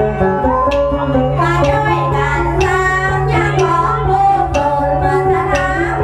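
Northern Thai so folk music: a bowed salo fiddle and a plucked pin lute play a melody over a steady low drone, with a plucked accent about once a second.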